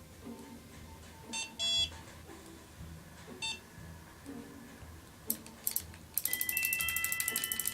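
Background music with a soft repeating pattern, marked by a few short electronic beeps about a second and a half in. About six seconds in, a fast, ticking marimba-like melody comes in and gets louder.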